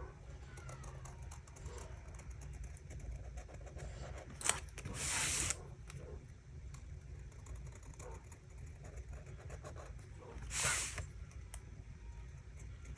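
Faint scratching of a bold permanent marker drawn over watercolour paper, under a steady low hum, with two short hissing sounds about five and eleven seconds in.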